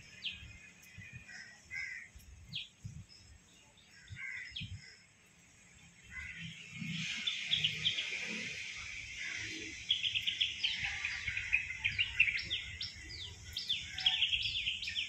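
Birds chirping in the surrounding trees: scattered single high chirps at first, then a busy chorus of quick, repeated high notes from about seven seconds in.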